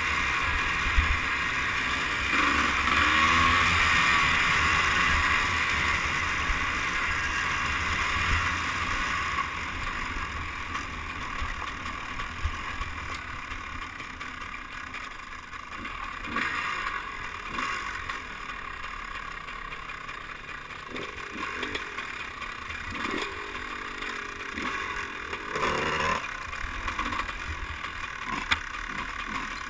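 Two-stroke dirt bike engine running on a trail ride, heard through a camera mounted on the bike, with wind noise. The revs rise and fall several times, in sweeps in the second half.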